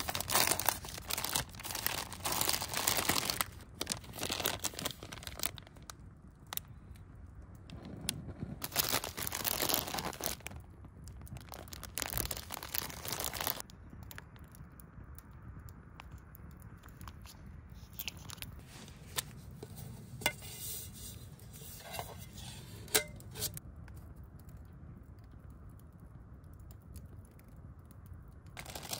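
Heated vest being handled: its fabric rustles and crinkles in loud spells during the first half, then quieter handling with scattered small clicks.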